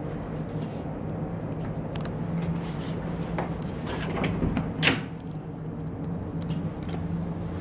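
A cabin door's lever-handle latch clicks open about five seconds in, with a few lighter clicks and rattles just before it. A steady low hum from the ship runs underneath.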